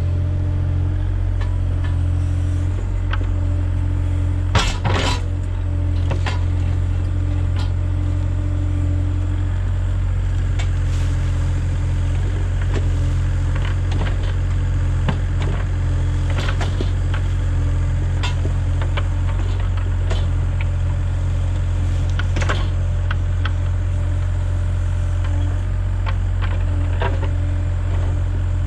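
Kubota mini excavator's diesel engine running steadily under load as the boom and bucket dig into dirt, with scattered clanks and knocks from the bucket and arm working; the loudest clank comes about five seconds in.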